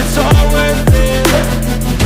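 Electronic background music with a heavy bass and a steady drum beat, kick drums sweeping down in pitch about twice a second.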